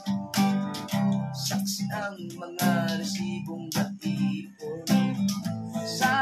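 Acoustic guitar being strummed, chords played in a steady rhythm as song accompaniment.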